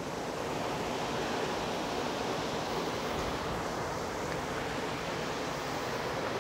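Steady rushing noise that holds level throughout, with no distinct events.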